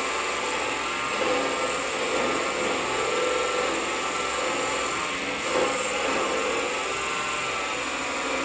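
Vevor mini lathe running, its motor and gearing giving a steady whine that wavers slightly in pitch, while the tool takes a light turning cut on a 2024 aluminium bar and peels off curling chips. It is briefly louder about five and a half seconds in.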